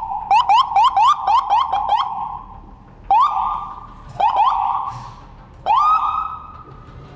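Siren of a Rosenbauer electric fire engine as it leaves on an emergency call. It yelps rapidly, about four rising sweeps a second, for two seconds, then gives three separate short rising whoops.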